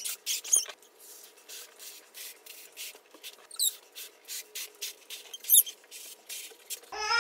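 A latex balloon being blown up by mouth: repeated short puffs of breath into it, with a few squeaks from the stretching rubber. Near the end a baby starts crying.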